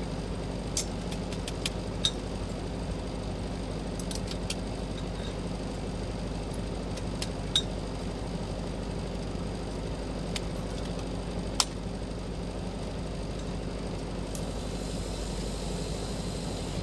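Steady electrical hum of welding equipment while a stainless-steel flange is welded, with a dozen or so short, sharp ticks scattered through it.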